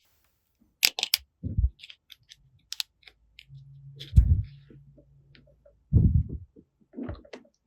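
Small plastic toy pieces being handled and set down: scattered sharp clicks and taps, with a few soft, dull thumps.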